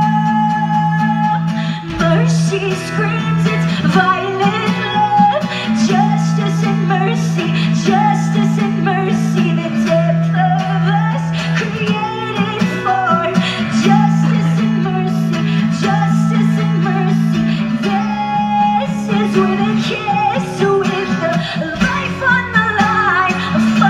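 Live amplified performance: a woman singing into a microphone over an acoustic guitar and sustained low notes that change every couple of seconds. The sung melody comes in about two seconds in.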